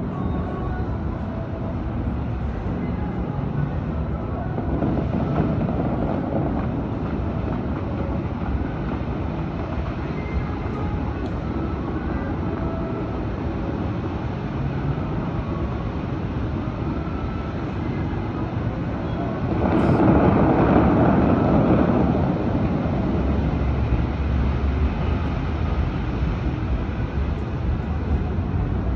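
Steady open-air noise heard from high above: a low rumble of distant traffic and wind, with faint snatches of the fountain show's music. A louder rush of noise swells about twenty seconds in and eases off a couple of seconds later.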